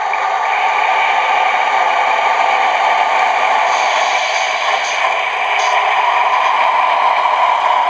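Digital sound decoder in a model diesel railcar playing a steady diesel engine running sound through tiny phone-type speakers. It sounds thin and mid-heavy, with a few faint high hisses near the middle as the railcar creeps along.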